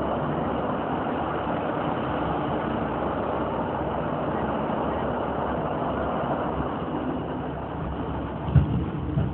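Steady running noise inside an older passenger train carriage in motion, easing slightly about seven seconds in. Two short low thumps come near the end.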